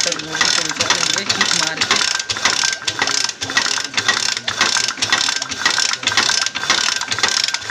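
Bajaj Discover 125 single-cylinder engine being turned over with its cylinder-head cover off, giving a fast, continuous mechanical clattering and clicking. It is being spun to pump engine oil up to the cylinder head after a rebuild.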